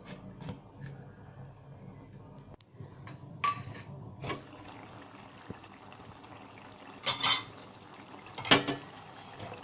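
Cooking pan and utensils clattering: a few short metal clanks of a lid and spoon against the pan of gravy, the loudest near the end.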